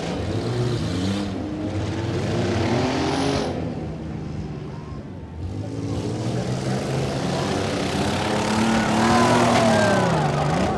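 Several van and pickup truck engines revving up and down together as they manoeuvre in a demolition derby, with one engine dropping in pitch and then revving hard back up near the end.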